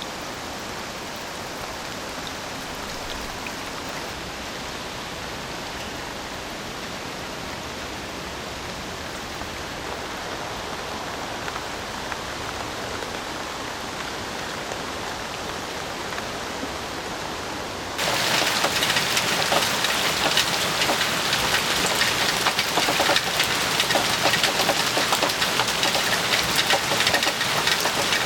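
Heavy typhoon rain falling steadily. About 18 seconds in, it suddenly becomes much louder and closer, with a dense spray of sharp drop hits on a surface.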